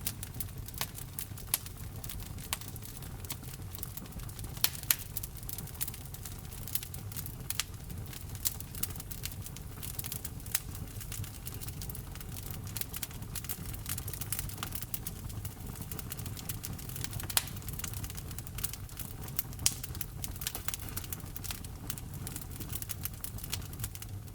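Wood fire in a fireplace crackling, with frequent irregular sharp pops and snaps from burning logs over a low steady rumble of flame. A few pops stand out louder than the rest.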